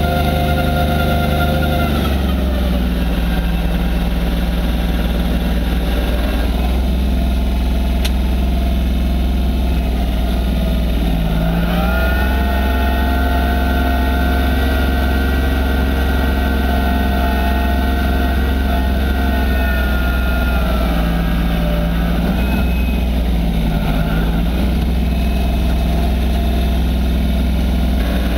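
Massey Ferguson 1020 compact tractor's diesel engine running steadily while driving a snowblower. Its pitch drops a couple of seconds in, picks up again around the middle and eases back later.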